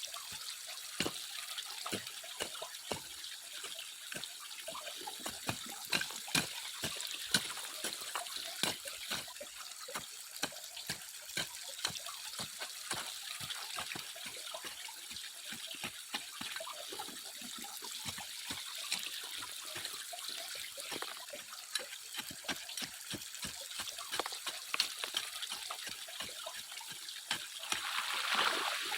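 Water trickling and splashing, with many small irregular clicks and splashes over a steady hiss.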